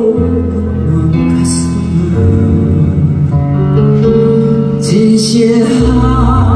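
A woman singing a slow Korean ballad live into a handheld microphone over a backing track with guitar, amplified through the stage speakers.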